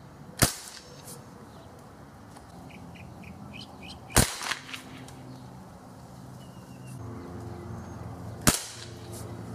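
Three shots from a Winchester 800X spring-piston pellet rifle, about four seconds apart, each a single sharp pop. The first and last are fired normally; the middle one is dieseling, a dab of mentholatum behind the pellet igniting, and is trailed by a couple of smaller cracks.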